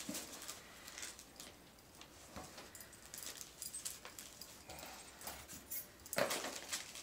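Chocolate Labrador nosing and sniffing through a cardboard box of wrapped dog toys, with scattered light rustling of the packaging and the jingle of his collar tags; a sharper rustle comes about six seconds in.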